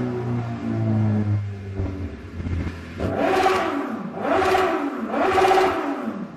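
Suzuki GSR750/GSX-S750 inline-four with a CS Racing aftermarket exhaust, its revs falling away, then revved three times in quick succession. Each blip rises and drops back within about a second.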